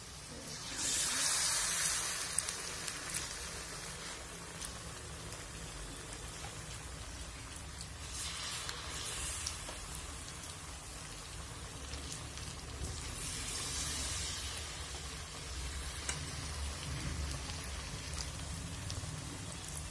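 Batter-coated jackfruit pieces deep-frying in hot oil in a kadai: a continuous crackling sizzle that swells louder three times, about a second in, around eight seconds and around thirteen seconds, as more battered pieces go into the oil.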